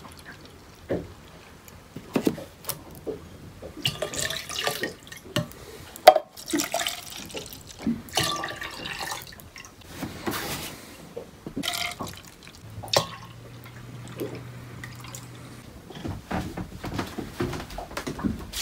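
Fruit juice poured from cartons into a can and a glass blender jar, splashing and dripping, broken by knocks and clunks of cartons, caps and containers set down on the counter; a sharp knock about six seconds in is the loudest. A low steady hum runs for about three seconds past the middle.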